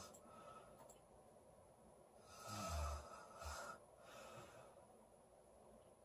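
A sleeping woman snoring: one loud snore about two and a half seconds in, falling in pitch and ending in a short second burst, with quieter breaths before and after.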